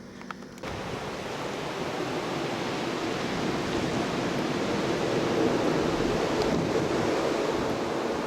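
Blizzard wind, a steady rushing noise that starts abruptly about half a second in and swells slightly.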